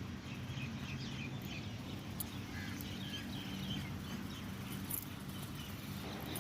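Birds chirping in the background over a steady low hum.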